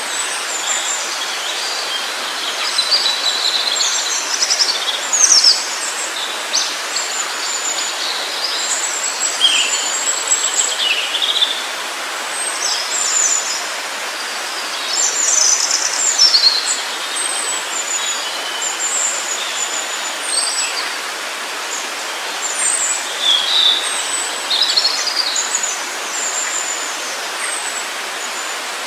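Several forest birds chirping and singing in many short, high calls and trills, over a steady background rush of running water.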